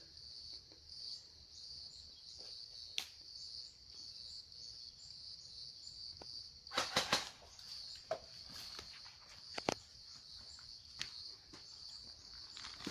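Insects chirring with a steady, high-pitched pulsing chirp, broken by a few sharp clicks, three of them close together about seven seconds in.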